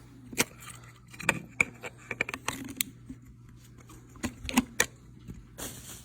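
Hard plastic handheld vacuum parts and attachments being handled and fitted together, making scattered sharp clicks and knocks. A brief rustle comes near the end.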